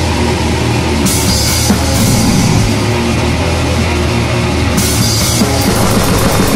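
Loud heavy metal music from a band recording, with a drum kit pounding throughout. Bright cymbal washes come about a second in and again near five seconds, and there are rapid, even drum strokes toward the end.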